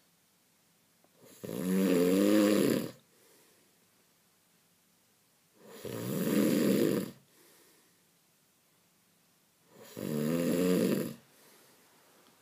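A person snoring: three loud snores about four seconds apart, each about a second and a half long with a wavering pitch, and faint breath sounds between them.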